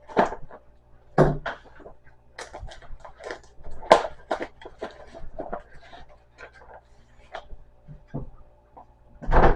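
Small items and packaging being handled: a run of irregular clicks, rustles and light knocks, with a louder clatter near the end.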